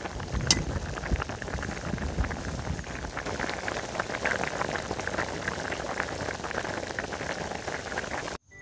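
Frog and tamarind-leaf broth boiling in a metal wok over a charcoal fire: a steady, dense bubbling and popping. There is a single sharp click about half a second in, and the sound cuts off suddenly just before the end.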